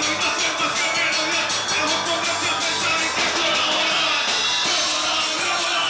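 Loud punk rock music: a fast, steady drum beat with crashing cymbals under a singing voice.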